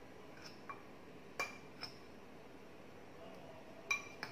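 Metal spoon clinking against a glass bowl while dry gram flour and spice powders are mixed in it: about five light, ringing clinks, the loudest about a second and a half in.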